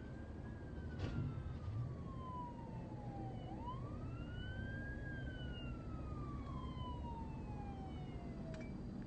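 Police car siren in a slow wail: the pitch slides down for about three seconds, sweeps quickly back up, then slides down again. It is heard from inside a car over a steady low rumble, with a sharp click about a second in and another near the end.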